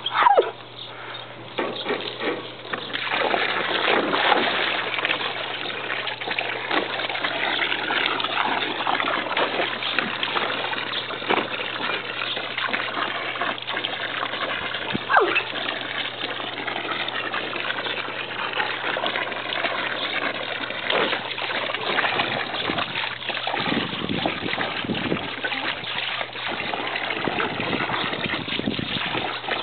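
Garden hose water pouring and splashing into a water-filled plastic kiddie pool, with a dog snapping and biting at the stream. The water starts about two seconds in.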